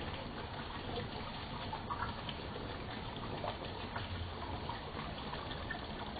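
Koi pond water bubbling and splashing, a steady watery rush dotted with small splashes as koi move at the surface.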